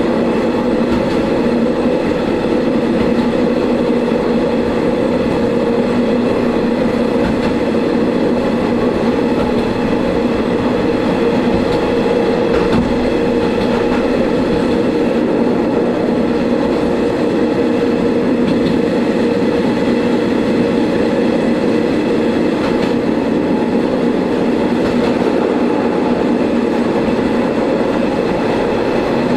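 Diesel railcar running steadily along the line, heard from inside the car: an even engine drone over wheel and rail noise, with a few faint clicks from the track.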